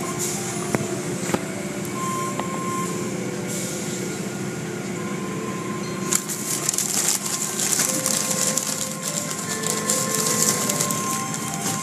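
Automatic tunnel car wash heard from inside the car: water spraying and the hanging soft-cloth curtain strips swishing and slapping over the car, on top of a steady machine hum. The spray and slapping grow louder and hissier about six seconds in.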